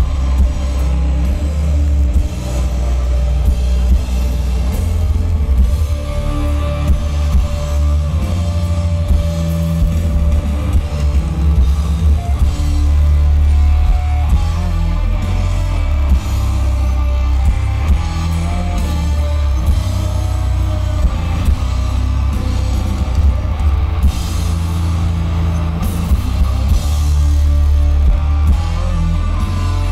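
A post-metal band playing live at high volume: distorted electric guitars, bass guitar and a drum kit with cymbals. It is heard from the crowd, with a heavy, booming low end.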